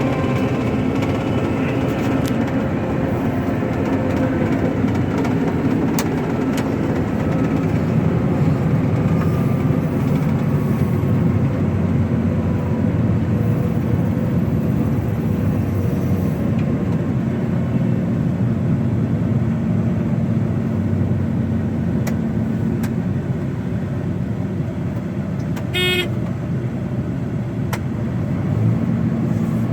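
John Deere 9600 combine running steadily under load while harvesting barley, with a short beep near the end.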